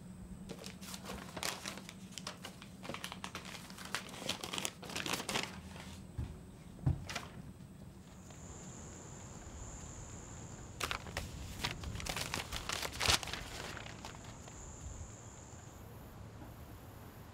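Paper bills being handled and pulled off a fridge door: papers rustling and crinkling in two bouts, with a soft thump in between.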